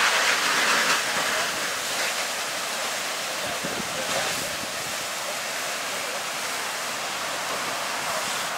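Steady rushing hiss of a fire hose's water jet striking a burning truck, a little louder in the first second.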